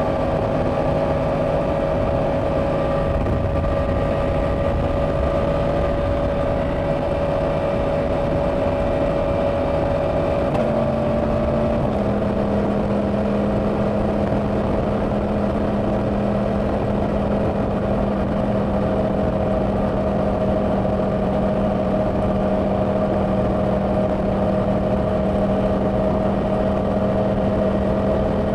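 Yamaha R1's crossplane inline-four engine running steadily at cruising speed through its stock exhaust, under heavy wind rush. The engine note shifts in pitch about ten seconds in and settles again shortly after, then holds steady.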